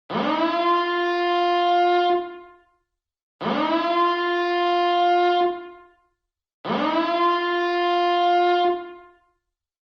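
Alarm siren, billed as a nuclear power plant reactor siren, sounding in repeated blasts. Each blast sweeps quickly up in pitch, holds one steady tone for about two seconds, then dies away, with a short silence before the next. There are three full blasts, and a fourth starts at the very end.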